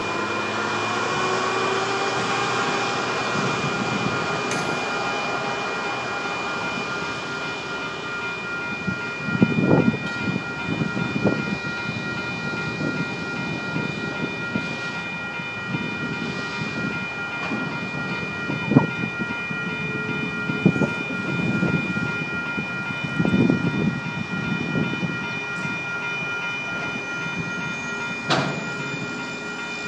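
Railroad crossing bell ringing steadily while a Trackmobile railcar mover pulls Herzog ballast hopper cars through a grade crossing. The mover's engine runs in the first few seconds, then the hopper wheels clank and knock irregularly over the crossing and rail joints from about nine seconds in.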